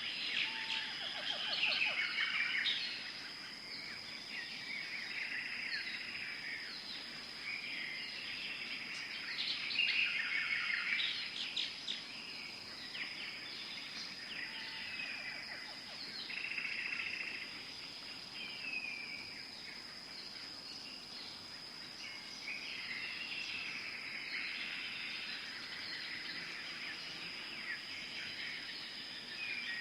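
Many birds chirping and trilling in overlapping calls over a steady, unbroken high-pitched insect drone.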